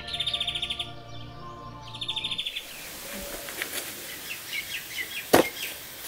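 Rapid trilling bird calls over a bed of sustained background-music tones for the first two and a half seconds. Then open outdoor ambience with scattered short bird chirps and a single sharp click about five and a half seconds in.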